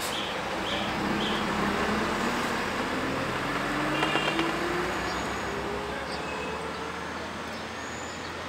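Street traffic with a school bus's engine pulling away, its pitch rising slowly as it speeds up. A few short high chirps come near the start, and a brief high beep about four seconds in.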